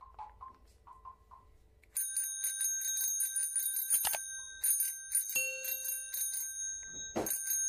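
A bicycle bell rung rapidly over and over, its ringing starting suddenly about two seconds in after a few faint chirps; a swish cuts through around the middle and again near the end, and a short steady tone sounds about halfway through.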